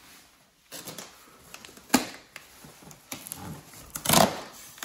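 A large cardboard box being handled and opened, with scattered clicks and knocks and a louder scraping rustle about four seconds in.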